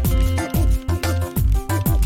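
Upbeat background music with a steady beat, bass and plucked, guitar-like notes.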